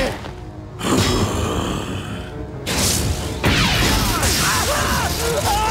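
Cartoon action sound effects over dramatic score music: a heavy crash about a second in, another sudden burst near the three-second mark, then a sustained electric zapping of an energy field.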